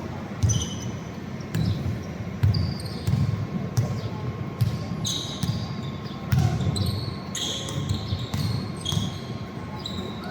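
Basketball game play: a ball bouncing on the court, with irregular thuds and short high sneaker squeaks.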